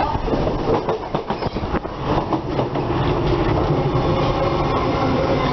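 Passenger train running on the rails, heard from on board: a loud rumble with quick clicks of the wheels over the track in the first two seconds, then a steadier hum.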